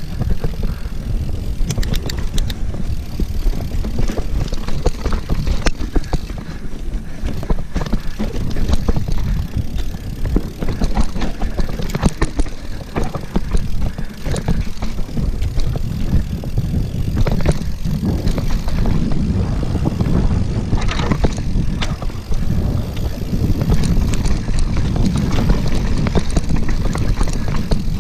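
Mountain bike riding fast down a dirt trail: steady wind rumble on the microphone, with tyre noise and frequent rattles and knocks from the bike over the bumps.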